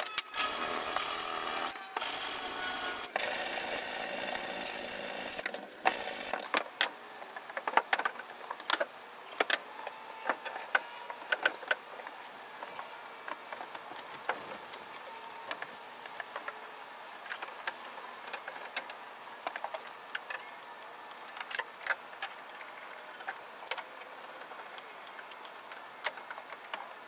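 Scattered clicks, taps and knocks of wooden frame pieces and metal bar clamps being fitted and adjusted by hand. These follow about five seconds of steady rushing noise at the start.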